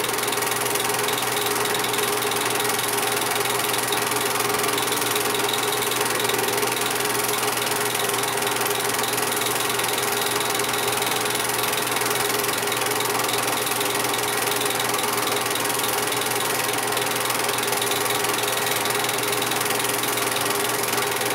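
8mm film projector running, a steady mechanical whir and clatter of its film-advance mechanism.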